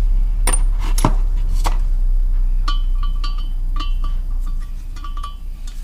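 Metal clinks as an engine valve is handled and slid in its guide in a Ford Focus ST225 cylinder head. Three sharp clicks come in the first two seconds, then a run of lighter, ringing clinks, over a steady low hum.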